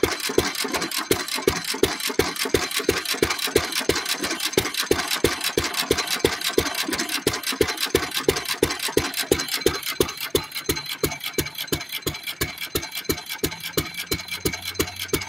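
1917 Fairbanks Morse Model Z 3 hp single-cylinder throttle-governed engine running on gasoline, firing on every revolution in a steady, even beat of exhaust strokes.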